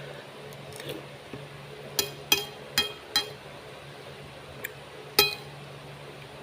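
Eating utensil clinking against a bowl: four sharp ringing clinks about two seconds in, then a faint one and a louder one near the end.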